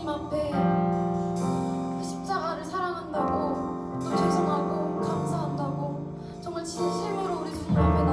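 Worship song sung live: voices singing a melody over sustained keyboard chords.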